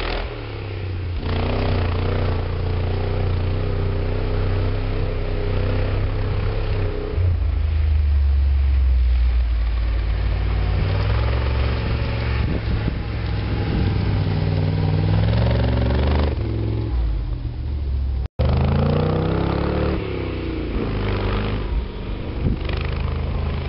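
1966 International Harvester 4x4's engine working hard as it drives through deep snow, its pitch climbing and falling repeatedly with the throttle. The sound cuts out for an instant about three-quarters of the way through, then resumes.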